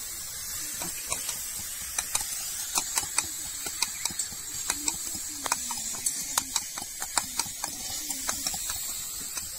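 Jujube pickle sizzling softly in an aluminium wok over a wood fire, under a run of sharp, irregular metal clinks and taps from the cooking utensils.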